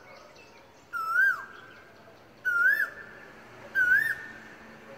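Asian koel calling: a clear whistled note that rises and then drops sharply, repeated three times at about one-and-a-half-second intervals, each a little higher in pitch than the last.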